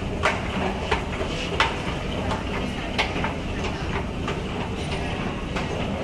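Steady low rumble in a busy glass-roofed hall, with irregular sharp clacks about once a second.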